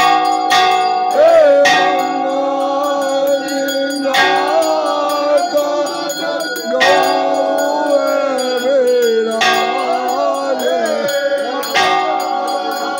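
Temple aarti: bells ringing continuously, with sharp metallic strikes now and then, under voices singing the aarti in a wavering melody.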